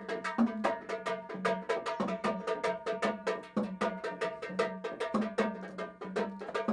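Fast, steady temple percussion during worship: sharp strikes about seven a second over steady ringing metallic tones.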